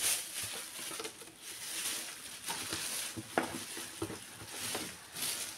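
Rustling and handling noises, with scattered small clicks and taps and one sharper tap a little past halfway.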